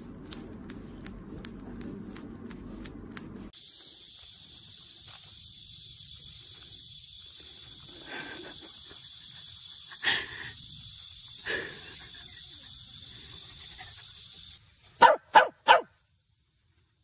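A dog barking: a few single barks spaced a second or two apart, then three sharp, loud barks in quick succession near the end, over a steady high hiss.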